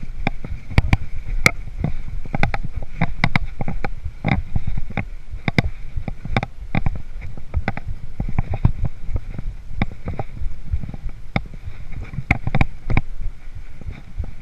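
Hardtail mountain bike riding over a rough dirt trail, heard from the rider's chest: a steady low rumble broken by frequent irregular clicks, knocks and rattles as the bike hits bumps and stones.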